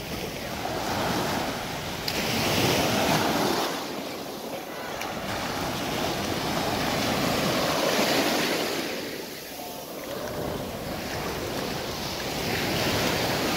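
Sea surf breaking and washing up a sandy beach, rising and falling in three slow swells.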